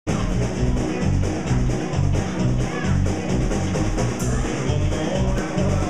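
Live rock band playing loudly, a drum kit and bass keeping a steady beat under electric guitar.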